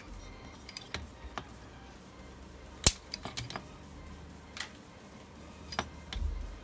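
Hand tools and loose power-supply parts being handled on a workbench mat: scattered sharp clicks and taps, the loudest about three seconds in, and a dull thump near the end.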